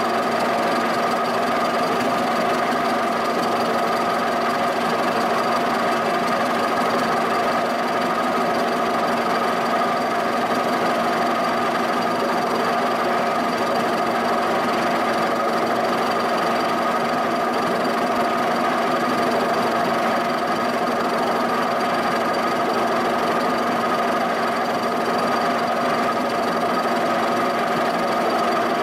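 Giddings & Lewis horizontal boring mill running steadily, its milling cutter facing the bottom of a cast-iron shaper base flat: a continuous machine hum with several steady tones.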